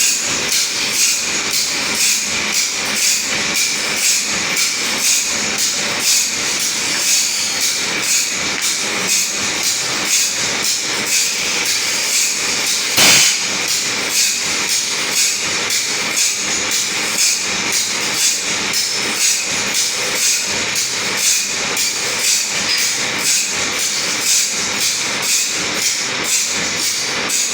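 Saw teeth being sharpened: a steady metallic rasping hiss that swells in even strokes a little more than once a second, with one harder stroke about halfway through.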